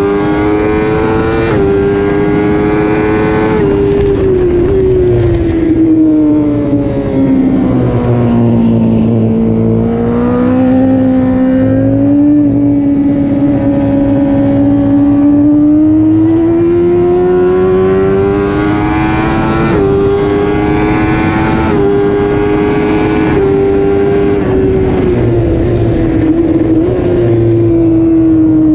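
BMW S1000RR inline-four engine at high revs, heard onboard and mixed with heavy wind rush. The engine note climbs under full throttle with quick pitch steps at the gear changes, eases down slowly for a few seconds and then builds again.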